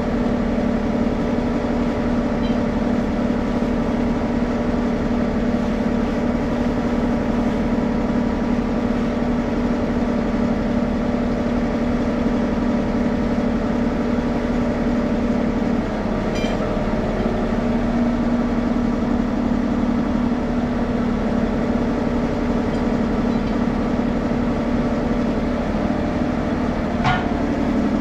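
An engine running at a steady speed, a constant drone with a fixed hum, with a faint click about sixteen seconds in and another near the end.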